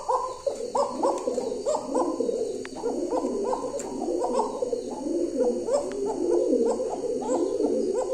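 Domestic pigeons cooing continuously, a steady run of repeated coos overlapping one another.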